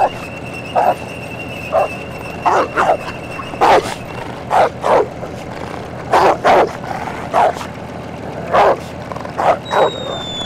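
A dog barking repeatedly, with irregular single and double barks about once or twice a second. Near the end a high whistle starts and slowly falls in pitch.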